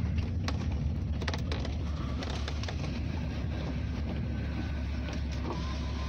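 Van engine and road rumble heard from inside the cabin as it drives slowly, with a few scattered clicks and knocks in the first couple of seconds.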